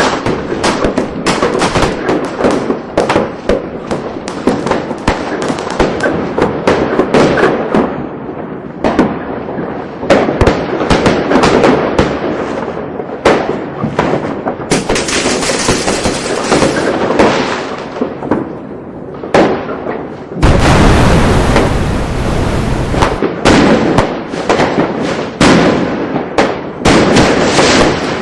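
Fireworks going off in quick succession: a dense run of sharp cracks and bangs. A stretch of high hissing crackle comes around the middle, and a few seconds of loud, unbroken rattle about three-quarters through.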